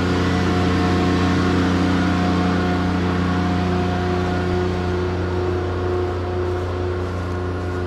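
Kubota GL14000 diesel generator running steadily under load, a low, even hum that eases slightly as the distance grows. The owner takes most of what is heard to be the radiator fan.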